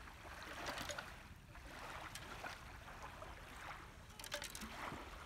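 Faint lapping of lake water at the shoreline, with a short cluster of sharp clicks about four seconds in.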